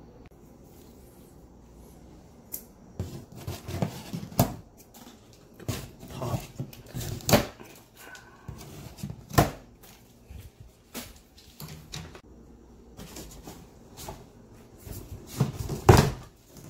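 Large cardboard shipping box being moved, laid down and opened by hand: a string of knocks, thumps and cardboard scraping, the hardest thumps about seven, nine and sixteen seconds in.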